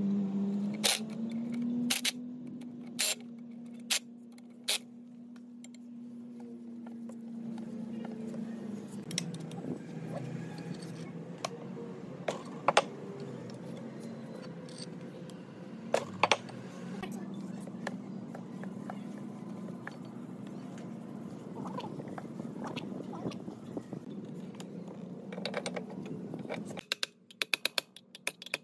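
Scattered sharp metallic clicks and clinks of hand tools working inside a tiller's metal gearbox housing, over a steady low hum that cuts off near the end.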